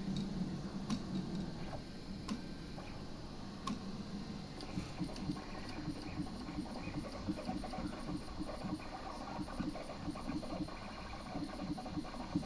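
Printer ticking without printing, the symptom of a printer that runs but puts nothing on the page. A few separate clicks come first, then from about four seconds in a fast run of ticks over a low hum.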